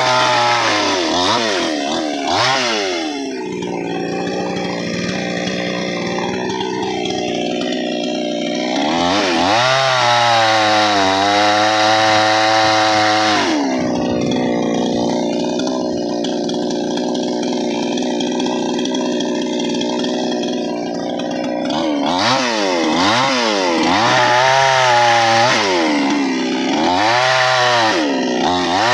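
Chainsaw engine revving up and down again and again, with long spells of steady running at lower, held revs, typical of the chain biting into wood under load.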